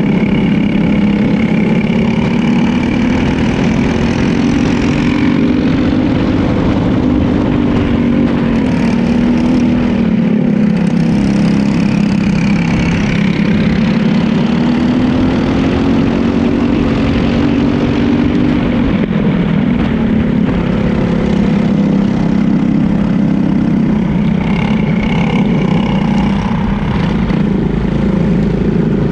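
Briggs & Stratton single-cylinder four-stroke kart engine at racing speed, heard from on board. Its pitch climbs and falls several times as it revs out on the straights and slows for corners, with other karts' engines running close by.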